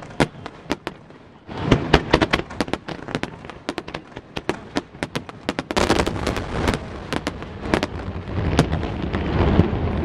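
Aerial fireworks bursting: a rapid series of sharp bangs and crackles, thickening about six seconds in into a dense, rumbling barrage.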